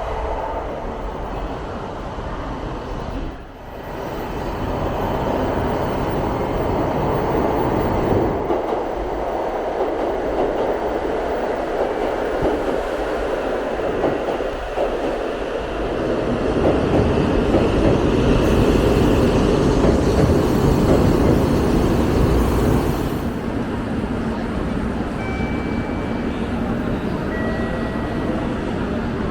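Shinkansen bullet train pulling into the station platform: a steady rush of train noise that swells louder for several seconds past the middle, with a high hiss added.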